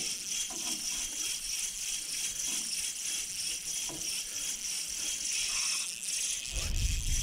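Steady high-pitched buzzing of insects chirping in a summer chorus, with a few faint sounds under it. A low rumble on the microphone sets in near the end.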